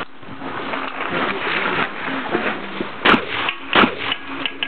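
Two loud gunshots from a long gun, under a second apart.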